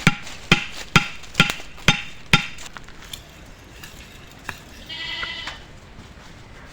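Six sharp knocks about two a second, each with a brief ringing tone, stopping about two and a half seconds in; near the end an animal gives one short bleating call.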